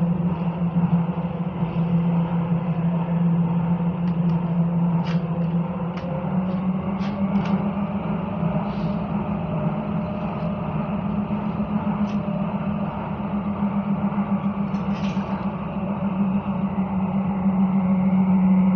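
Inside a Copenhagen Metro driverless train running through a tunnel: a steady low hum of the train under way, its pitch rising slightly about six seconds in and dropping back near the end, with a few faint clicks.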